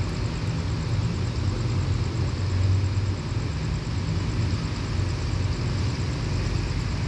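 Diesel locomotive engine idling with a steady low hum.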